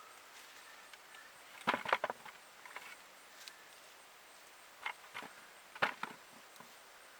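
A few short knocks and scrapes in small clusters, about two seconds in and twice more later on, from digging potatoes out of garden soil with a hand tool.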